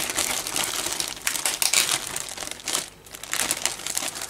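Clear plastic bag holding model-kit sprues crinkling as it is handled, a run of crackly rustles with a short lull about three seconds in.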